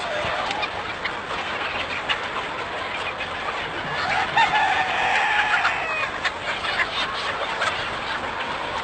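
A large flock of chickens clucking and calling together in a dense, continuous chatter, with one louder, drawn-out call rising above the rest about four seconds in.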